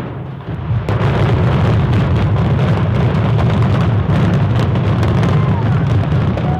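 Building demolition: a loud, deep rumble with dense crackling, jumping up in level about a second in, as a structure is brought down with explosives.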